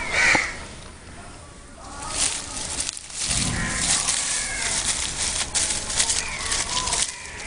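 Newborn puppies whimpering and squealing: a loud high-pitched cry right at the start, then several short whines later on. Leaves and twigs rustle and crackle from about three seconds in.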